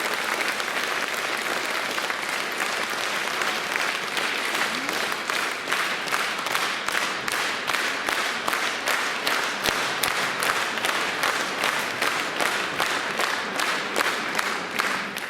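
Concert hall audience applauding. About halfway through, the clapping falls into rhythmic unison at about three claps a second.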